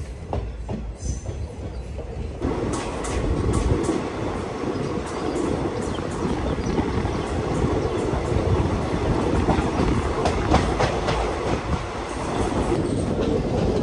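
Passenger coaches of an express train rolling on the rails as the train pulls out of a station, heard from the open coach doorway. The wheels click over the rail joints in a steady rumble that grows louder about two seconds in as the train gathers speed.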